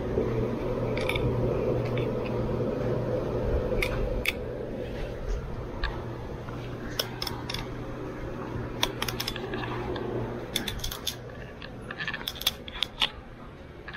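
Knife filleting a whole cobia: scattered short clicks and scrapes as the blade works along the backbone and the fish shifts on a plastic table cover, busier in the second half, over a steady low hum.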